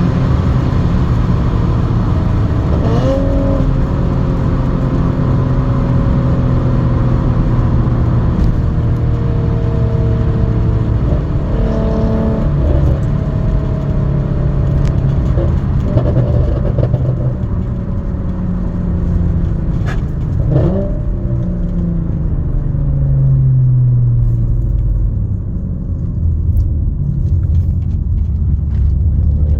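Straight-piped Audi S4 exhaust running loud and steady at a cruise, its note stepping up and down a few times. About two-thirds of the way through there is a single sharp crack, and a little later the note falls as the car slows.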